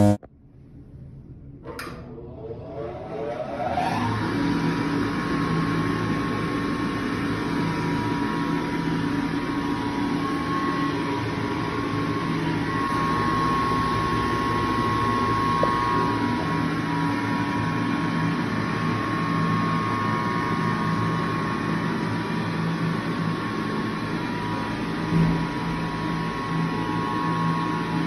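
ASI Nova 5 push-button hand dryer starting with a click about two seconds in. Its motor spins up with a rising whine, then runs steadily, blowing with a hum and a high whine.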